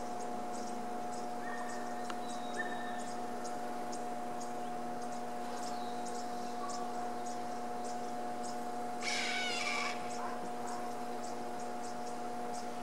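Harris's hawk giving one harsh alarm call, lasting about a second, roughly nine seconds in. Insects chirp in quick high ticks, a few a second, over a steady hum.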